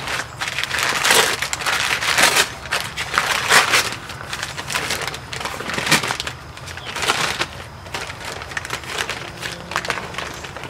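A plastic zip-top bag and white wrapping paper crinkling and rustling in irregular bursts as a raw, seasoned brisket is unwrapped by hand.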